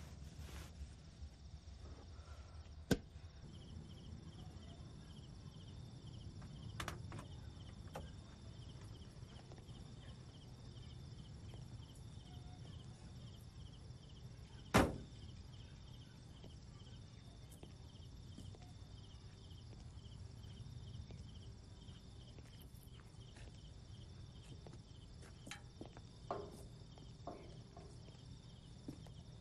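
Quiet night ambience with insects chirping in a faint, steady pulsing rhythm over a low rumble. There is a sharp click about three seconds in and a loud clunk of a van door about halfway through, then a few soft knocks near the end.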